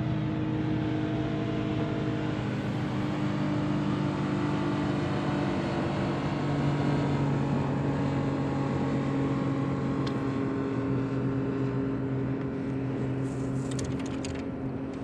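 A boat motor running steadily at an even pitch, easing off slightly near the end, with a few faint clicks.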